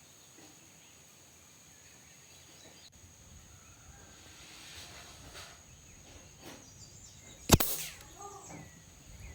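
A single shot from a Benjamin Fortitude Gen 2 regulated PCP air rifle in .22 (5.5 mm) with an integrated sound suppressor: one sharp crack about seven and a half seconds in, with a brief tail after it.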